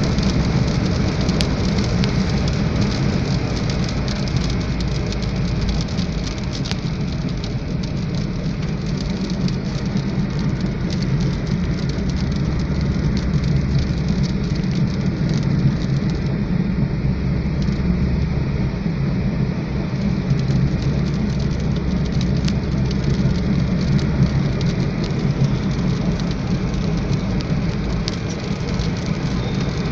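Rain falling on a moving car: many small drop ticks over a steady low engine and road rumble.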